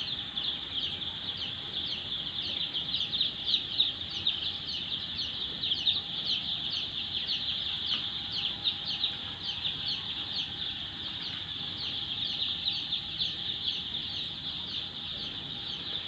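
A large flock of four-day-old chicks peeping continuously: many short, high chirps, each falling in pitch, overlapping without a break.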